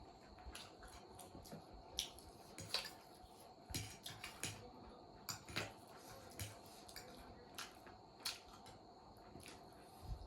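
Close-up eating sounds: irregular clicks and wet smacks of chewing on spicy instant noodles and momo, with utensils tapping a dish, about fifteen in all.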